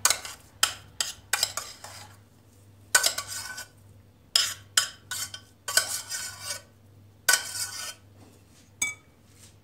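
Metal spoon scraping and knocking against the inside of a stainless steel saucepan as mashed potato is scraped out into a bowl. There are short clinks and several longer scrapes about half a second each.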